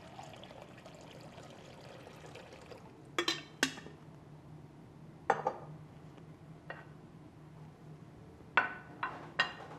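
Water poured from a glass jug into a glass bowl for nearly three seconds. Then come sharp clinks and knocks of glassware and dishes handled on the counter: two about three seconds in, another two seconds later, and three close together near the end.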